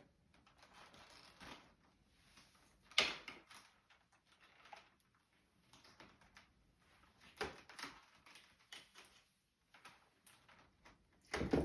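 Vacuum cleaner power cord being unwound by hand: faint rustling with scattered light clicks and knocks, the sharpest about three seconds in.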